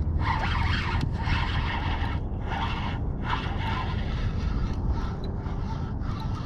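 Spinning reel being cranked to bring in a hooked fish, over a steady low rumble.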